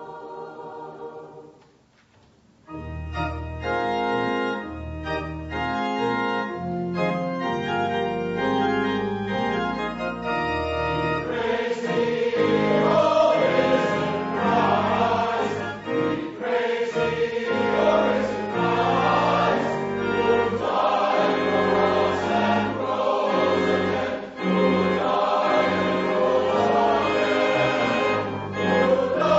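Church music: a held chord dies away, and after a short pause an organ begins playing sustained chords with a deep bass. About ten seconds later a choir joins in singing over the organ.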